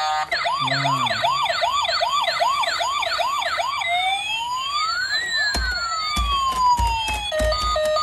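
Toy police car's electronic siren sounding: a fast repeating rising yelp for about four seconds, then a slower rising-and-falling wail, switching near the end to a pulsed beeping tone. A few low knocks come in the middle as the toy is handled.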